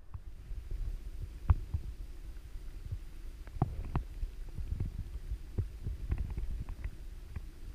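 Stream water heard through an underwater camera: a low, muffled rumble with irregular clicks and knocks.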